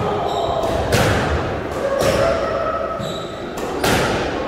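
Squash rally: sharp smacks of racket on ball and ball off the court walls, three in a few seconds, echoing in the court.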